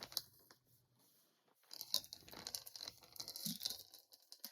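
Crinkling and rustling of packaging as skeins of yarn are handled and unpacked, a dense crackle that starts after a short pause and runs on.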